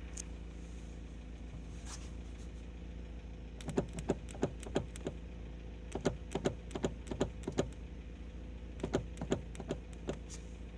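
Lada Priora running steadily, with three bunches of sharp knocks and rattles as it goes over bumps, about four seconds in, in the middle and near the end. This is the knock the owner is tracking down, which he suspects comes from a loose joint that moves up and down.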